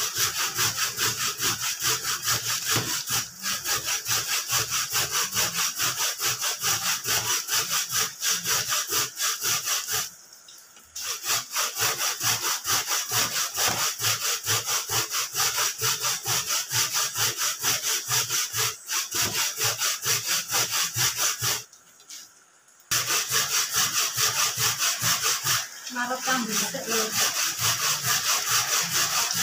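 Fresh coconut meat being grated by hand on a flat metal grater, in quick, steady rasping strokes that pause briefly twice, about ten and twenty-two seconds in.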